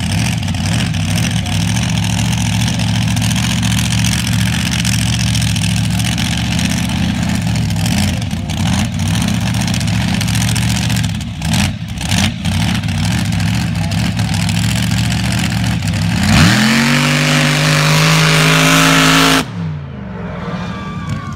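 Supercharged rail buggy's engine running at a deep, steady idle, then revving sharply to full throttle about sixteen seconds in as it launches, holding a loud high note for about three seconds before the throttle comes off and the note falls away quickly.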